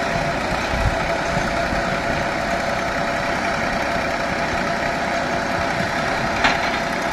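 Engine of a tractor-drawn water-well drilling rig running steadily, with a steady hum over the noise. A single short knock about six and a half seconds in.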